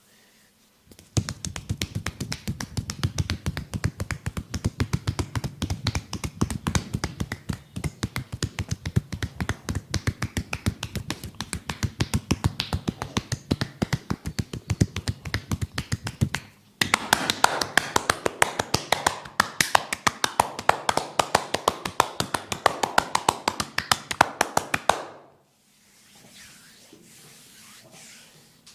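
Hand percussion massage: rapid, steady tapping and chopping strokes of hands on the head and neck. The strokes are dull and deep at first, then after a brief break turn brighter and sharper, and stop suddenly near the end.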